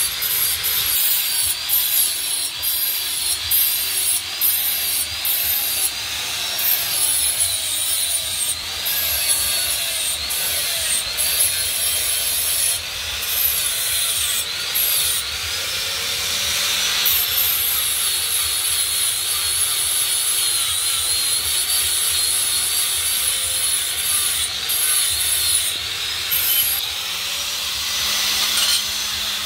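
Electric angle grinder grinding a steel knife blade, its high whine dipping and recovering over and over as the disc is pressed into the metal and eased off.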